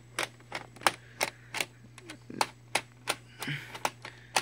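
A run of about a dozen sharp clicks, roughly three a second, as a screw is worked out of a laptop's plastic case with a screwdriver.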